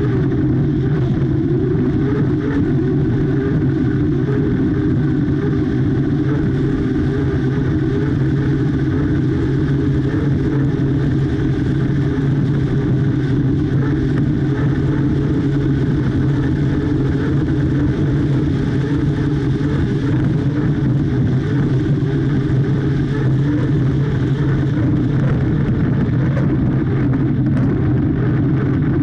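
Unlimited hydroplane's Lycoming turbine engine running steadily at racing speed, mixed with the rush of wind and spray.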